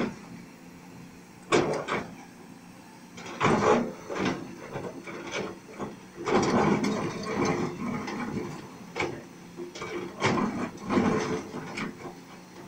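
Kobelco 210 hydraulic excavator digging: its diesel engine runs steadily underneath, and irregular bursts of scraping and crunching come as the bucket tears through soil and rock, the loudest a few seconds apart.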